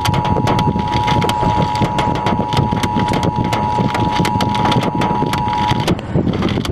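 Emergency Alert System attention signal: the harsh two-tone alarm held steady, over loud crackling noise with a low rumble. The tone cuts off suddenly about six seconds in while the crackling rumble goes on.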